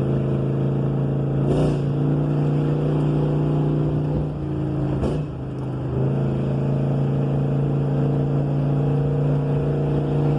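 A 302-cubic-inch (5.0 L) V8 car engine running steadily under way in first gear. Its pitch changes briefly about a second and a half in and again about five seconds in, and the level dips a little between those moments.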